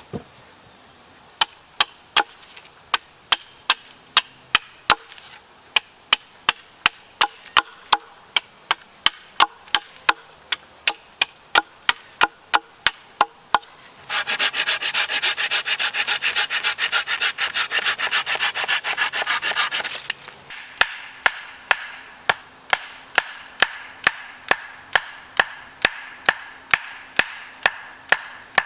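Wood being chopped or struck with a blade, sharp knocks at about two to three a second. Midway these give way to about six seconds of steady rasping like sawing, then the knocking resumes.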